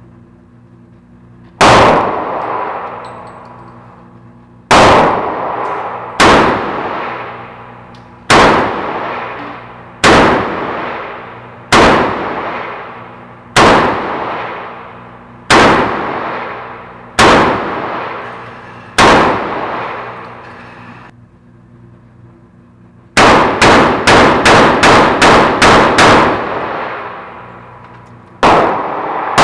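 Gunshots in an indoor shooting range: about ten single shots from a Taurus .22 Magnum revolver, spaced one and a half to two seconds apart, each ringing out in the range's echo. Later comes a quick string of about nine shots in under four seconds.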